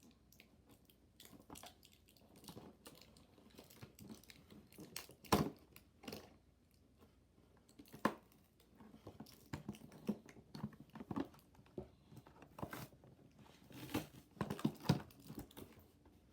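Toy packaging being handled and opened: irregular crinkling and rustling with sharp clicks, the loudest about five, eight and fifteen seconds in.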